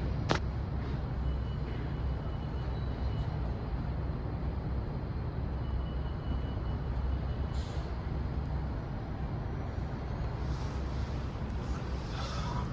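Steady low rumble of city traffic, with a single click just after the start.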